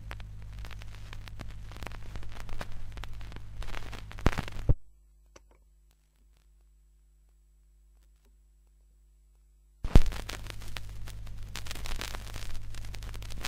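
Vinyl record surface noise between tracks: crackle and pops over a steady low hum. A few louder pops come just before it cuts to dead silence for about five seconds in the middle, then it resumes with a pop and crackles on until the music starts.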